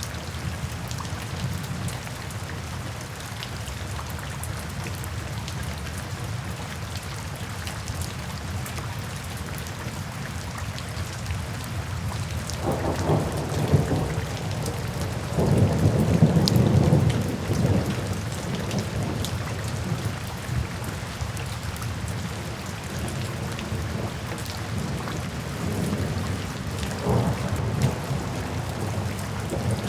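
Steady rain falling, with a roll of thunder rumbling in from about twelve seconds in, loudest around sixteen seconds, and a fainter rumble near the end.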